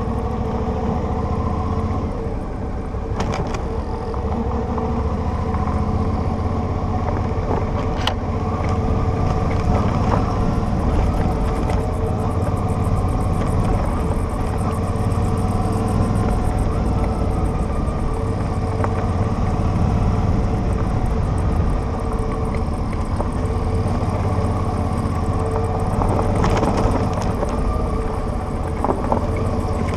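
Motorcycle engine running steadily under way, heard from the rider's own bike, with road and wind noise as it travels a rough dirt road. A few faint clicks sound through it.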